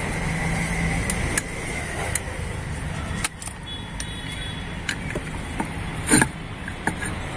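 A screwdriver and a long steel rod prying an oil seal out of a motorcycle front fork tube: scattered sharp metal clicks and scrapes, with a louder knock about six seconds in, over a steady low background hum.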